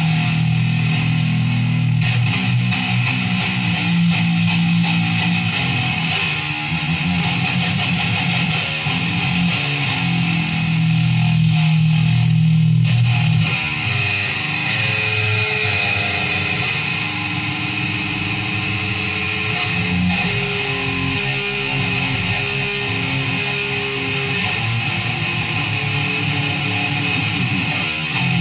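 Guitar music: strong, low held chords for about the first half, then a slower line of single higher notes.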